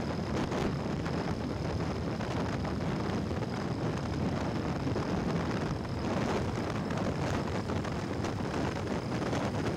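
Wind rushing over the microphone with the road noise of a motorcycle riding at speed, steady throughout, with a faint steady high whine.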